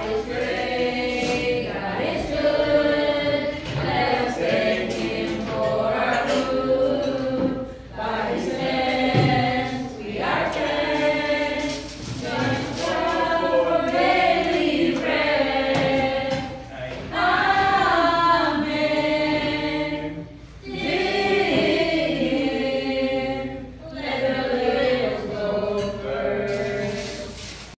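A group of voices singing a song together without instruments, in short lines of a few seconds each with brief pauses between them.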